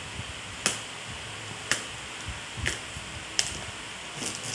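Sharp clicks about once a second, four of them, then a few quicker ones near the end, from a taped cardboard parcel being worked open by hand, over a steady hiss.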